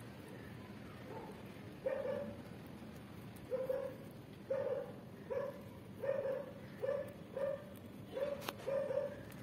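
A dog barking repeatedly in short barks, sparse at first and then nearly two a second from about three and a half seconds in, with a sharp click near the end.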